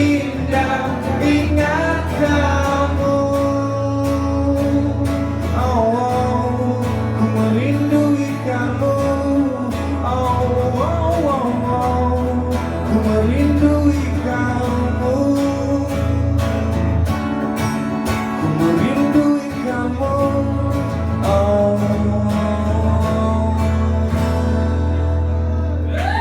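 Live folk-pop band music: strummed acoustic guitar over a steady bass, with a gliding melody line on top and no clear sung words.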